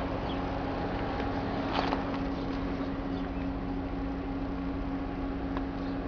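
Steady mechanical hum holding two constant low tones, with a few faint clicks and a brief rustle just under two seconds in.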